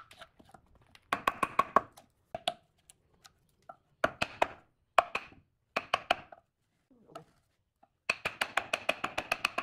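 Quick runs of sharp knocks on wood, several a second, in bursts of about a second with short pauses between them; each knock rings briefly.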